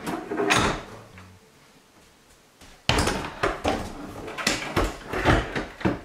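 Knocks and scrapes of empty flat-pack kitchen cabinet boxes being shifted and set into place against the wall: a couple of clunks in the first second, then a run of knocks and scraping from about three seconds in.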